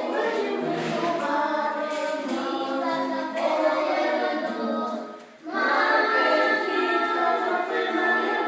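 A choir singing unaccompanied, many voices holding sustained notes together, with a brief break about five seconds in before the voices come back in.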